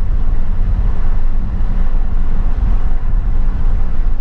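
Steady low rumble of a moving vehicle, with road and wind noise.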